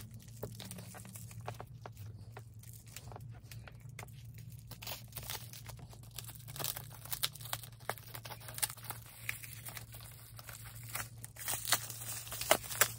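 Package wrapping torn and crinkled by hand while being unwrapped, in scattered short crackles that get busier and louder near the end, over a low steady hum.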